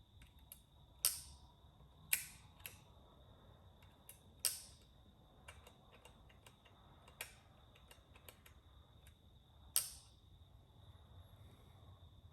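Small mechanical clicks and ticks of a vintage Zeiss folding camera's film-advance and shutter mechanism being worked by hand, with five sharper clicks about 1, 2, 4.5, 7 and 10 seconds in.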